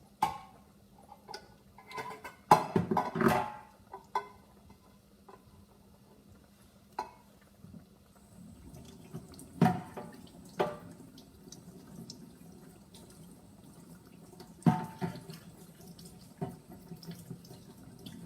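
A few sharp knocks and clatters, then a kitchen tap running into the sink from about eight seconds in as hands are washed, with more knocks as the hands move under the water.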